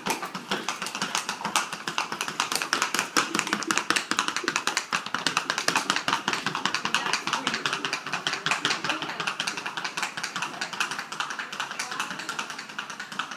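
Paso Fino horse's shod hooves clattering on a concrete barn aisle in the breed's rapid, even four-beat gait, many footfalls a second. The footfalls fade a little near the end as the horse moves away.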